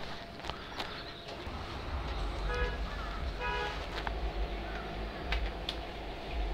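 A vehicle horn gives two short toots, about two and a half and three and a half seconds in, over a steady low road rumble, with a few sharp clicks scattered through.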